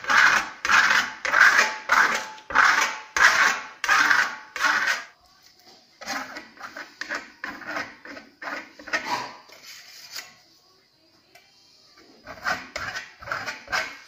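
Steel plastering spatula scraping across the wall in quick repeated strokes, about two a second, as Venetian plaster is spread over marmorino. The strokes go quieter after about five seconds, pause briefly, and start again loudly near the end.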